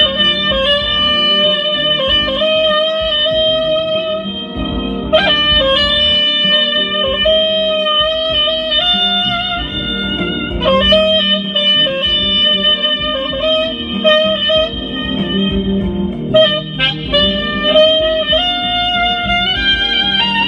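Soprano saxophone playing a slow melody of long held notes over backing music.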